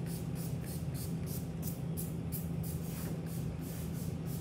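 Spray bottle squirted over and over in quick, evenly spaced hissing puffs, several a second, as flea spray is sprayed onto a dog. A steady low hum runs underneath.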